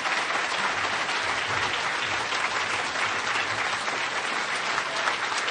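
Audience applauding steadily, dense clapping from a large room full of people.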